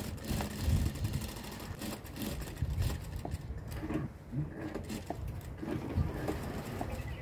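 Anysew industrial lockstitch sewing machine stitching a shirt collar band, running in short runs with a low hum and irregular clicks.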